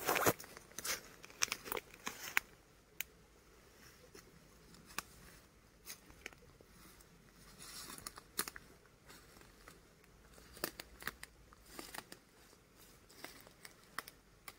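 Irregular rustling and sharp crackles close to the microphone, thickest in the first couple of seconds and again about eight seconds in.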